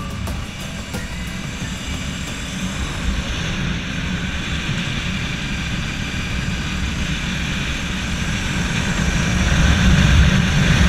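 Motorcycle engine running at road speed, heard from an onboard camera with wind rushing over the microphone, growing louder near the end.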